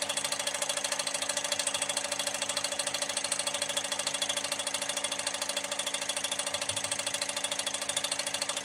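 Cummins injector flow test bench running a flow test on a clamped Cummins injector: a rapid, even mechanical ticking over a steady hum.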